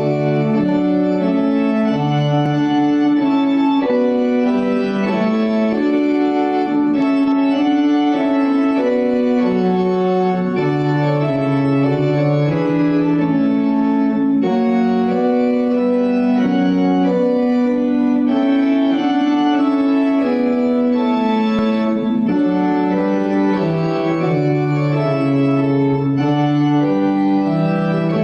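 Organ playing slow, sustained chords of a hymn tune, the chords changing every second or two.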